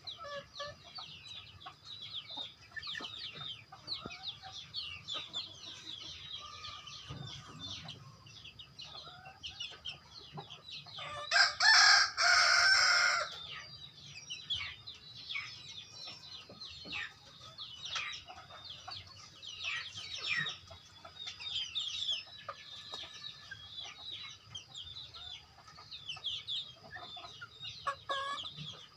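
A flock of kampung (Indonesian native) chickens clucking and peeping in many short, quick calls. About eleven seconds in, a rooster crows loudly for about two seconds.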